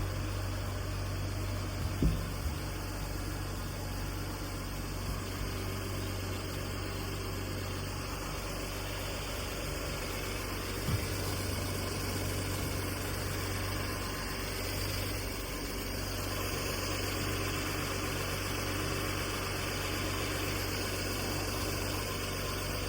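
A car engine idling steadily, with two sharp knocks, about two seconds and about eleven seconds in.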